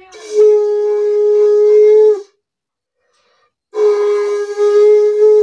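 Conch shell (shankh) blown twice in long steady blasts of about two seconds each, with a short silence between, as part of evening puja at a home shrine.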